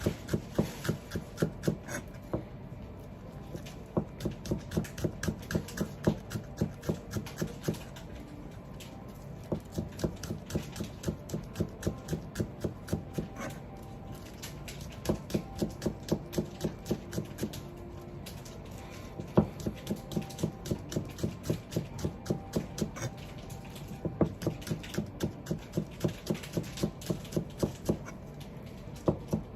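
A kitchen knife slicing Japanese green onion (negi) against a cutting board: quick, even chopping strokes about three to four a second, in runs of several seconds broken by brief pauses.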